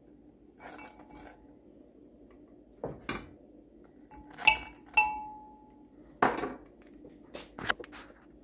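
A kitchen utensil knocking and clinking against a glass casserole dish and a frying pan as fried potato pancakes are moved into the dish. There are about seven separate knocks; two near the middle ring briefly like struck glass. A faint steady hum runs underneath.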